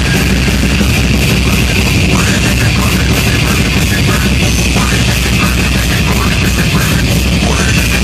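Slam death metal band playing live at full volume: dense, heavily distorted guitar and bass, steady throughout.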